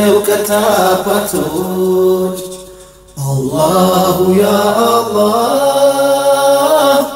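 Nasheed vocals: voices chanting in long drawn-out, melismatic phrases, with no recognisable words. One phrase fades out and a second begins about three seconds in.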